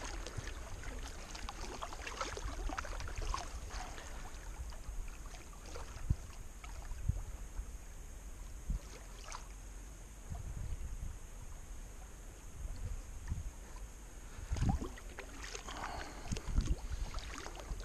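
Kayak being paddled on calm river water: the paddle blades dip and splash at uneven intervals, over a low rumble.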